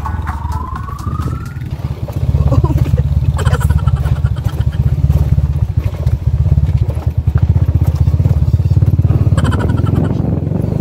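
Motorcycle engine running while riding along a rough dirt road, its exhaust pulsing steadily; it gets louder about two seconds in.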